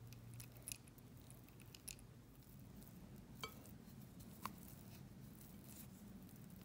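Silicone whisk mashing softened butter in a glass mixing bowl: faint scraping with scattered light clicks against the glass, the two sharpest about midway.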